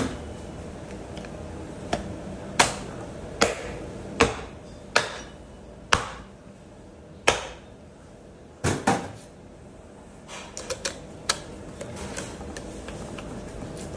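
A wooden-handled hatchet chopping into a scalded animal head on a wooden butcher's block to split the skull: about nine sharp, ringing blows roughly a second apart, then a few lighter knocks.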